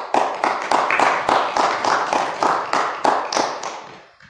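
Rhythmic hand clapping, about three claps a second, steady and then fading out near the end.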